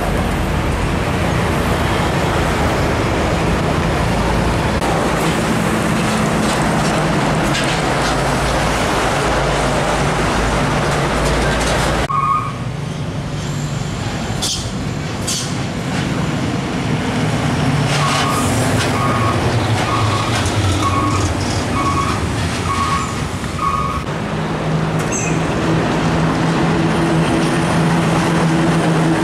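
Heavy diesel trucks driving past with engines running and road noise. About halfway the sound cuts to a quieter stretch with two short hisses and a run of about seven short, evenly spaced beeps. Near the end a truck's diesel engine grows louder as it comes close.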